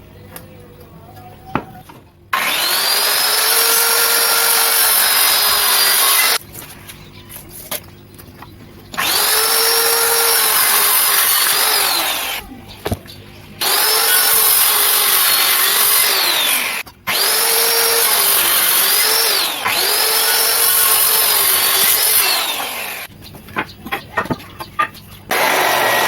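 Electric circular saw running in five bursts of a few seconds each, cutting wood. Its whine sags in pitch at moments as the blade takes the load, and it drops away between cuts.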